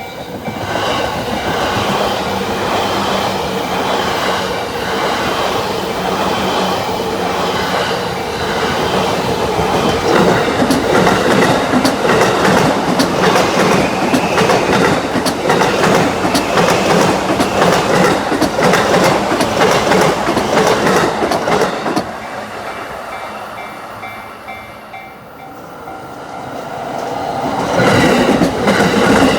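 JR Yamanote Line electric train passing over a level crossing, its wheels clattering over the rail joints. The noise swells about a second in, eases for a few seconds near the end, then builds again.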